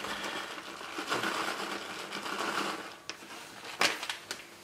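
Plastic bag of grated mozzarella shaken over a glass bowl, a steady rustling as the cheese falls in, followed by a few sharp clicks near the end.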